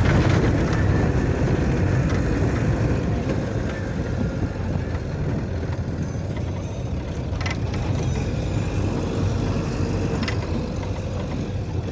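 A moving road vehicle's engine and road noise, heard from inside the vehicle as it drives along: a steady low rumble, with a couple of brief knocks or rattles about seven and ten seconds in.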